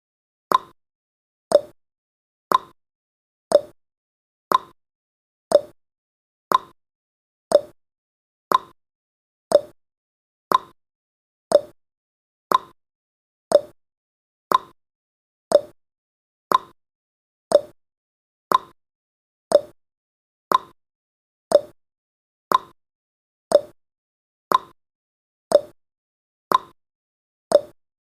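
Countdown timer's clock-tick sound effect, one sharp tick every second, alternating between a higher tick and a lower tock.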